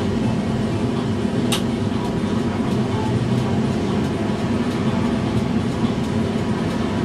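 Steady hum and low rumble of a tram standing still, heard from inside the driver's cab, with road traffic passing. One sharp click comes about a second and a half in.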